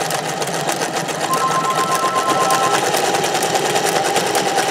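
Vintage electric sewing machine stitching at a steady speed, its needle and feed beating in a rapid even rhythm over a motor whine, a little louder from about a second in.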